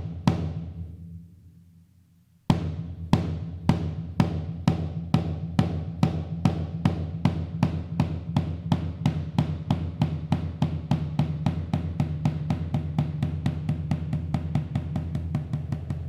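Lefima Provençal tambourin (long drum) with its snare strainer off, struck: two single strokes at the start left to ring out, then from about two and a half seconds in a steady run of strokes that gradually speeds up. Each stroke has a low, resonant ring.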